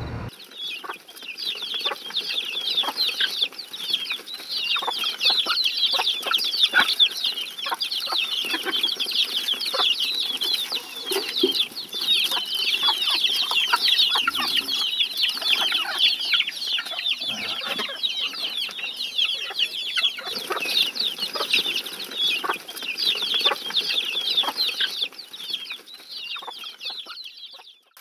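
A large crowd of chicks peeping all at once: a dense, unbroken chorus of short, high cheeps. It fades out just before the end.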